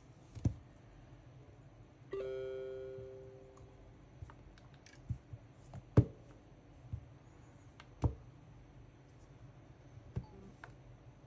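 Scattered light clicks and knocks of smartphones being handled, with one bell-like electronic chime about two seconds in that fades away over about two seconds.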